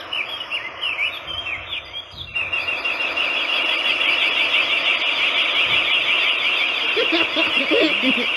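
Birds chirping in a dense, continuous chatter of short high calls, sparser at first and then busier after an abrupt cut about two seconds in.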